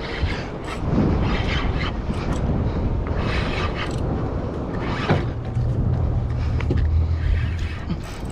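Wind buffeting the microphone and water rushing and sloshing around a fishing boat, in repeated surges. About five seconds in, a boat engine joins with a low, steady hum for a couple of seconds.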